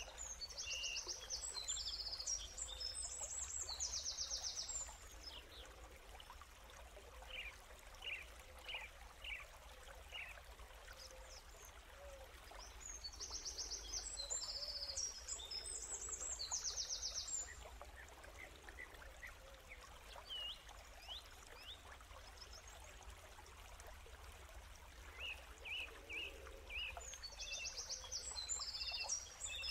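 Faint nature ambience: birds chirping and singing over a soft running-water background. Bursts of fast trilled song come about a second in, again around the middle and near the end, with single chirps between them.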